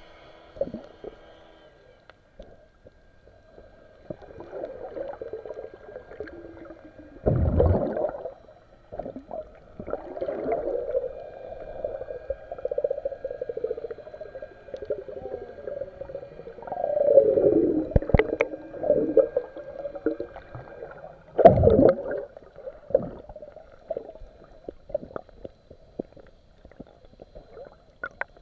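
Muffled underwater sound picked up by a camera held below the surface: shifting water noise with uneven swells and three louder surges.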